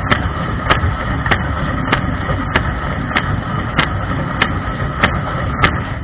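Dishwasher in its wash cycle, heard from inside the tub: the circulation pump hums and water sprays steadily. A sharp splash-tick comes about every 0.6 seconds, as a rotating jet sweeps past.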